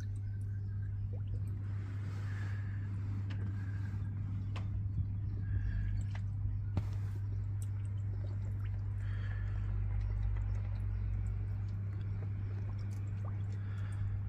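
Small drips, bubbles and light splashing of water in a pool as a Lego boat settles under the surface, over a steady low hum.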